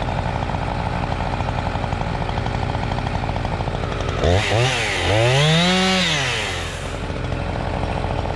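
Husqvarna 357 XP two-stroke chainsaw running at a low, steady speed, then throttled up twice about four seconds in: a short rev, then a longer one that holds near full speed for a second or two before dropping back to idle. The saw has just had a tune-up kit fitted.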